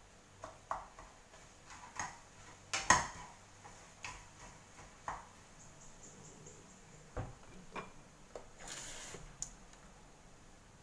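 Kitchenware being handled and set down on a stone countertop beside a gas hob: a string of separate clinks and knocks from pots, lids and bowls, the loudest about three seconds in, with a short noisy rush near the end.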